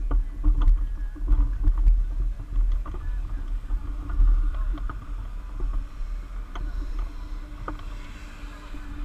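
Wind buffeting the microphone of a camera mounted under a hang glider's wing: a heavy low rumble that surges and eases, stronger in the first few seconds, with a faint steady hum and a few light ticks from the sail and frame.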